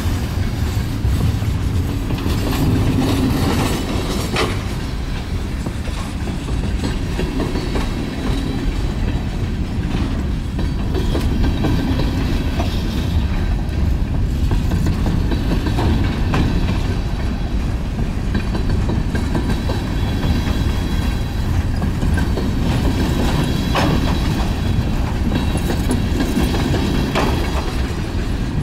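Freight cars (gondolas and covered hoppers) rolling past: a steady low rumble of steel wheels on the rails, with clickety-clack over the rail joints and a sharp knock now and then.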